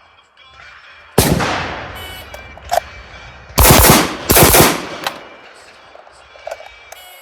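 Gunshots: a single sharp shot about a second in, then a quick cluster of louder shots around four seconds, each ringing out briefly.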